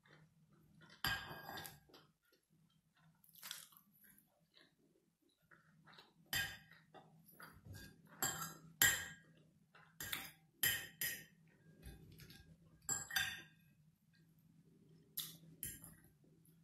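Metal fork clinking against a plate in a dozen or so irregular sharp clicks, with quiet chewing of fried fish and mac and cheese between them. A faint steady low hum runs underneath.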